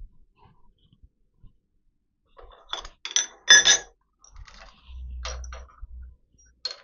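Metal tools and parts clinking and knocking on a milling machine table as the workpiece is unclamped. The loudest clinks come about three and a half seconds in, followed by a low rumble lasting about a second.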